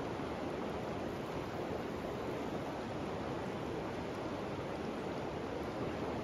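Steady rush of fast-moving river water running over rocks.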